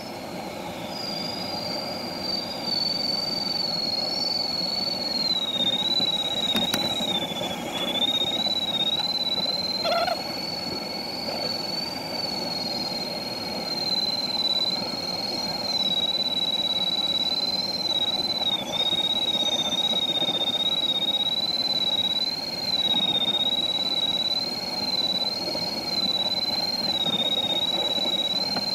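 Glider's audio variometer giving a continuous high tone that wavers slightly in pitch, following the rate of climb or sink, over steady wind noise of the airflow past the cockpit.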